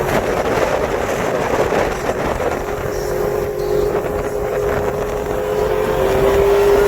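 Polaris RZR side-by-side engine running steadily while driving, with wind noise on the microphone; the engine note holds steady and creeps slightly higher toward the end.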